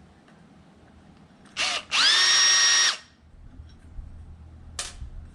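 A small power tool's electric motor gives a quick blip, then runs for about a second, spinning up fast to a steady whine before stopping.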